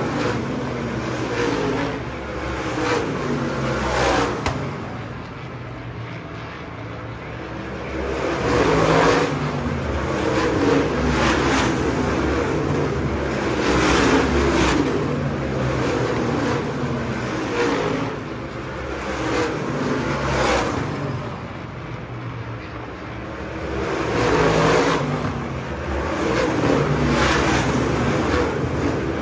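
Several V8 supermodified race cars running laps of the oval, their engines swelling loudly as cars pass close and fading between passes, with brief quieter spells.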